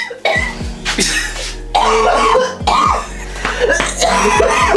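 A woman coughing hard several times after choking on something. Background music with a regular bass beat runs underneath.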